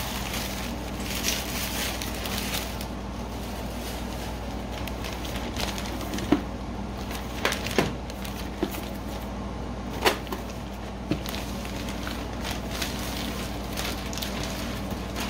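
Glossy plastic shopping bag rustling and crinkling as it is handled, with several sharp crackles in the middle of the stretch.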